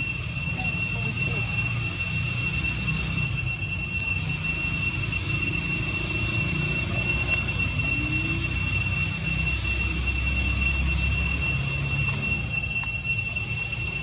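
Steady high-pitched drone of insects that does not change, over a low rumble.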